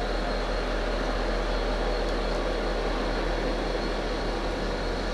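Diesel locomotive of a trackwork train with a steady low engine rumble as it slowly approaches.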